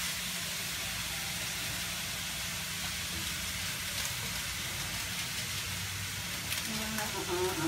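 Sliced bitter gourd (ampalaya) sizzling steadily as it stir-fries in a frying pan, with a faint click or two of the spatula against the pan, over a low steady hum.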